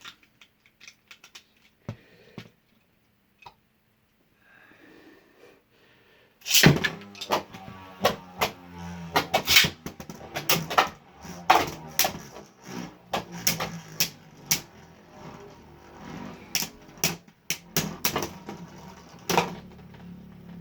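Light plastic clicks, then about six and a half seconds in a Beyblade Burst launch: a sharp crack as the tops land in the plastic stadium. The two spinning tops, Valtryek and Roktavor, then keep up a steady low whirr, broken by many sharp clacks as they collide.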